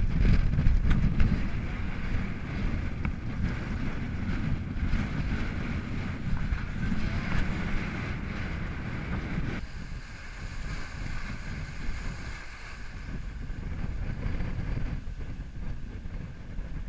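Wind buffeting the microphone and water rushing along the hull of a sailing yacht under way in a choppy sea. The heavy wind rumble drops off abruptly about ten seconds in, leaving a lighter rush of wind and water.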